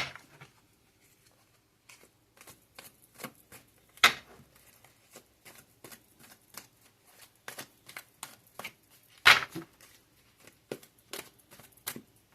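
Tarot cards being shuffled by hand: a run of quick, irregular flicks and rustles, with sharper slaps right at the start, about four seconds in and about nine seconds in.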